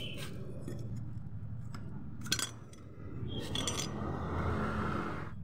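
Metal tools and scooter CVT parts clinking against each other, with the sharpest clank about two seconds in and a few quicker clinks after it, over a steady low hum.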